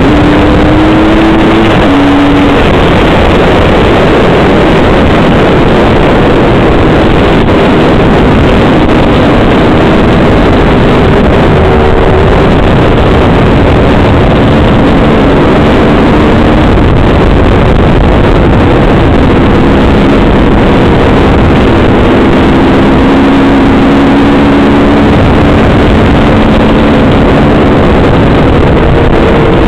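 Dirt bike engine running under way, loud, with heavy wind rush on the bike-mounted camera's microphone. The engine pitch climbs over the first two seconds, then settles and rises slowly again later.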